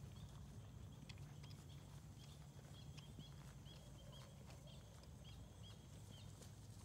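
Faint hoofbeats of a horse moving on grass, irregular soft thuds over a steady low rumble. A run of short high chirps comes from about two seconds in.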